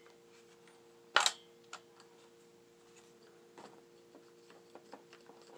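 Paintball marker being cocked: one sharp click about a second in, then a smaller click and a few faint handling ticks, over a faint steady hum.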